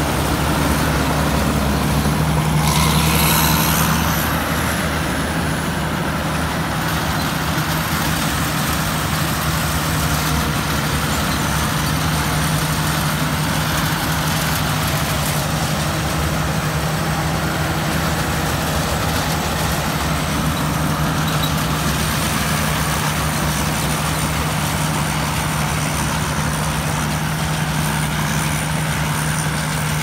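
Rice combine harvester's Hino turbo-diesel engine running steadily as the machine drives off and harvests, with a brief rev and a thin high whine that rises and falls a few seconds in.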